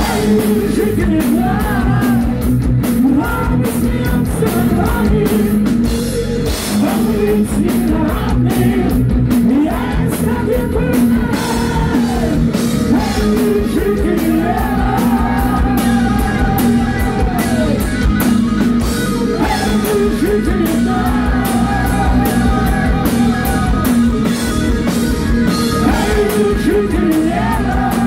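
Heavy metal band playing live: a male lead singer holding long sung notes over bass, guitar and a pounding drum kit.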